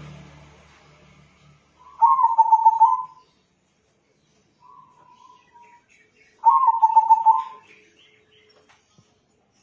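Zebra dove (perkutut) of a local crossbred line singing: two phrases of quick, rolling cooing notes about four seconds apart, with a short faint note between them.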